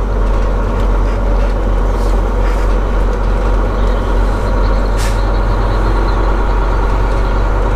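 Semi truck's diesel engine running steadily, heard from inside the cab while driving: a deep, even drone with road noise. A short hiss about five seconds in.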